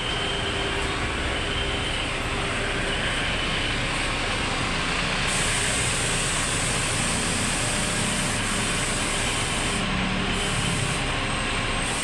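A large coach's engine running as the bus pulls out, over steady road noise. A high hiss joins about five seconds in and breaks off briefly near the end.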